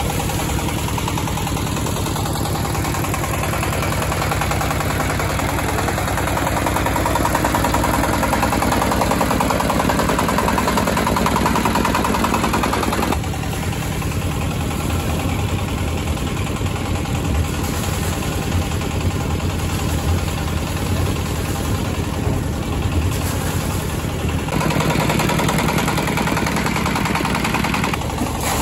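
A 25 hp single-cylinder Chinese diesel engine running steadily, driving the air compressor that airlifts water out of a well. Air and muddy water splash from the discharge hose into the bin, the sound changing in strength about halfway through and again near the end.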